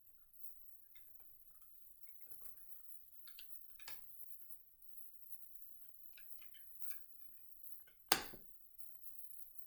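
Faint light taps and clicks of tarot cards being handled and laid down, with one sharper card snap about eight seconds in.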